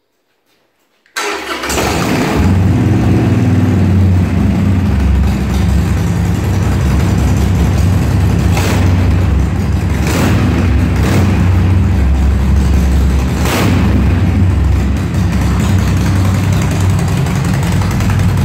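Harley-Davidson Forty-Eight's 1200 cc air-cooled V-twin starting about a second in and then idling with a deep, steady rumble through its stock pipes fitted with Customer exhaust tips, with a few short sharp cracks mixed in.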